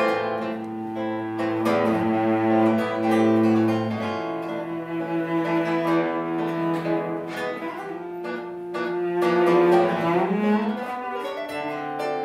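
A cello and a classical guitar playing a duet: the cello holds long bowed notes, a low one for about the first four seconds, over plucked guitar notes.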